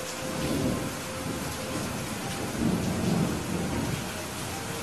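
Steady rain falling, with thunder rumbling low twice: briefly about half a second in, and more strongly from about two and a half to four seconds.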